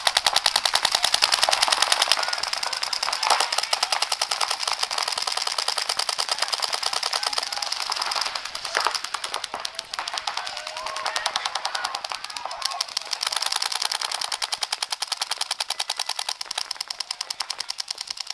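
Paintball markers firing in rapid streams, a dense, unbroken run of sharp pops from several guns at once.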